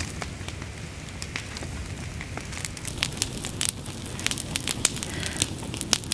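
Campfire crackling, with sharp pops that come more often after the first couple of seconds.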